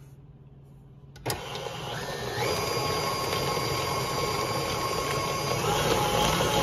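KitchenAid stand mixer switched on with a click about a second in. Its motor whine steps up in pitch twice as the speed is raised, then runs steadily as the flat beater with scraper edge churns thick whipped cream into butter.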